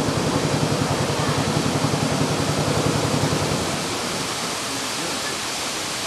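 A boat's motor running with a fast low throb, cutting out about three and a half seconds in and leaving the steady rush of a waterfall.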